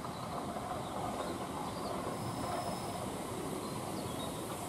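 Southeastern Class 465 Networker electric multiple unit running in along the platform, a steady noise of wheels on rail and running gear, with a few faint, brief high squeals.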